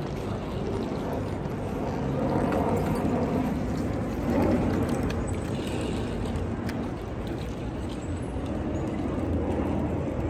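City street traffic noise: a steady background of passing vehicles.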